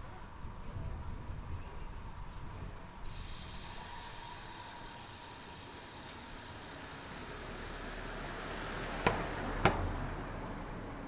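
Bicycle freewheel ticking while coasting, a fast even buzz for several seconds. Near the end come two sharp clicks about half a second apart.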